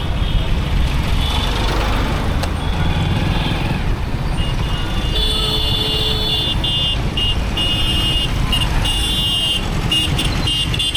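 Motorbike riding through road traffic: a steady low rumble of engine and wind on the microphone. From about five seconds in, a vehicle horn honks over and over in short blasts.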